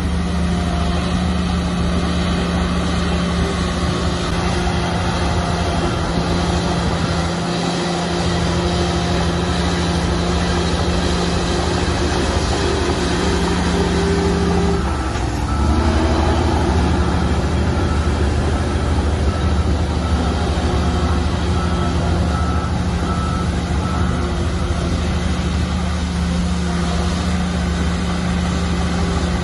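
Heavy diesel earthmoving machinery running steadily; the engine note dips briefly about halfway and then settles back. A reversing alarm beeps at an even pace through the middle.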